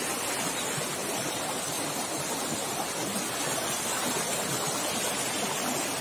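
Small mountain stream rushing over rocks, a steady, even rush of water.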